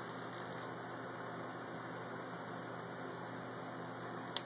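Steady background hiss with a faint low hum, and a single sharp click near the end.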